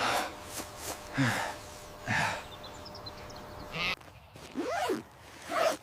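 A person gasping and sighing: several breathy exhalations about a second apart, with a short rising-and-falling voiced sound near the end.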